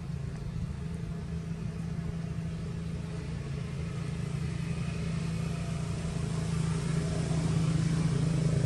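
A motor engine running with a steady low hum, growing gradually louder as it draws nearer.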